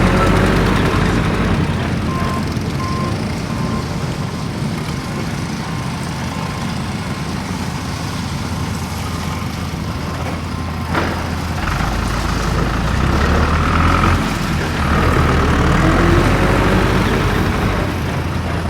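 Off-road vehicle engine running with a steady low rumble, revving up and down near the end. A row of short beeps sounds in the first half, and there is a sharp click partway through.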